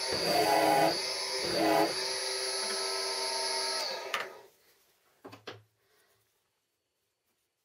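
Drill press motor running steadily while its bit cuts into a small wooden strip, louder twice as the bit bites the wood. The motor is switched off about four seconds in and runs down, followed by a couple of light knocks as the piece is handled.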